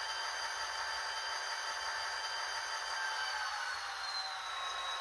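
Diesel locomotive engine sound from an N scale SD45 model's onboard sound decoder, running steadily and dropping slightly in pitch about four seconds in.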